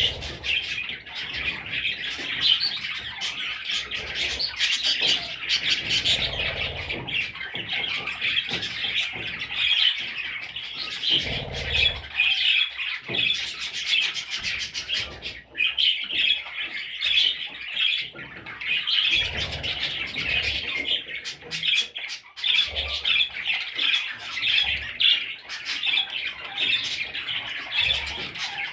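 Budgerigar chicks chirping and squawking in a dense, unbroken chatter, with a few low rumbles now and then.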